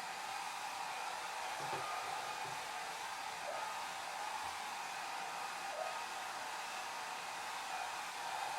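Hair dryer running steadily: an even rush of blown air, strongest in the middle of the range, with a faint steady tone from the motor riding over it.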